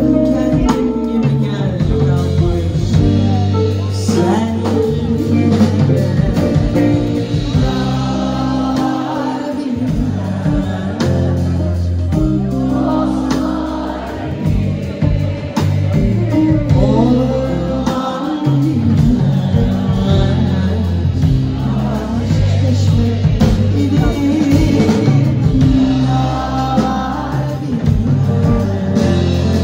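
Live band playing a song: a woman singing at the microphone over electric guitars, bass guitar and a drum kit.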